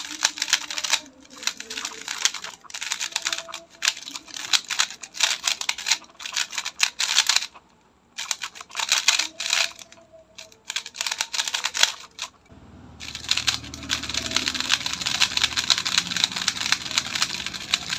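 X-Man Tornado V3 speedcube being turned fast by hand: the plastic layers clack and rattle in quick bursts of clicks with brief pauses, turning into a denser, continuous clatter about two-thirds of the way in. The turning noise is slightly louder than the Tornado V2's but not too noisy, about 8.5 out of 10 for quietness.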